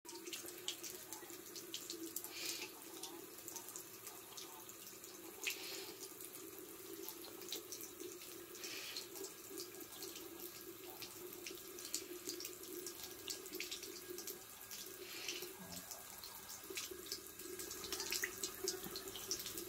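Thin stream of water from a bathroom mixer tap running steadily into a ceramic sink, with irregular small splashes and ticks as a cat laps at the stream.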